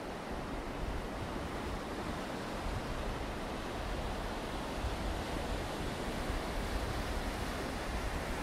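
Steady wash of surf breaking on the beach, with wind rumbling on the microphone.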